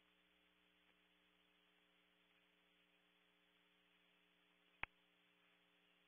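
Near silence with a steady low electrical hum and faint hiss, the sound of the nest camera's audio feed. One sharp, short click about five seconds in.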